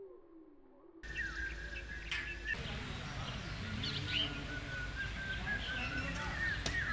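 Several wild birds calling at once, a busy mix of short chirps and whistles over a steady background. For about the first second the sound is muffled, with a low wavering tone, before it opens up into the chorus.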